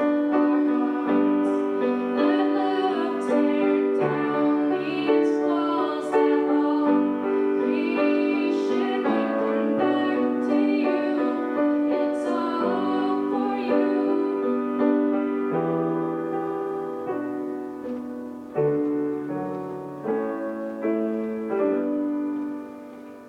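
Piano playing slow sustained chords of a worship song, with a woman singing over it; the music thins out and dies away about a second before the end.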